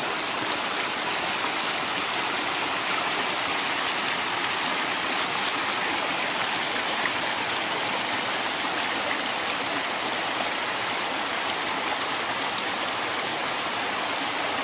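Mountain creek running over and between boulders, a steady rush of water.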